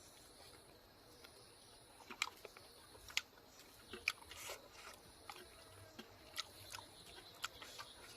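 Close-miked chewing, with scattered sharp wet mouth clicks and smacks.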